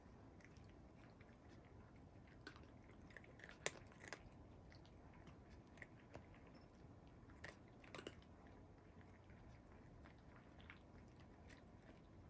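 Faint chewing and crunching: irregular small clicks, the sharpest about four seconds in and a short cluster around eight seconds.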